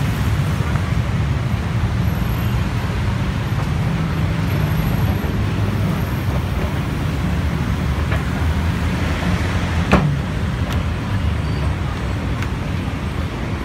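Steady rumble of city road traffic, with a single sharp click about ten seconds in.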